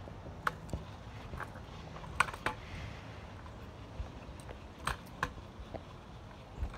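Kick scooter rolling over asphalt and concrete pavement: a steady low rumble from the small wheels, broken by about seven sharp clicks and rattles at irregular times.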